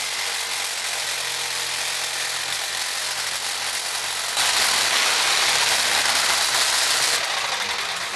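Table-mounted jigsaw running and ripping a thin strip off a wooden board. The sound gets louder and brighter about four and a half seconds in, then dies down near the end.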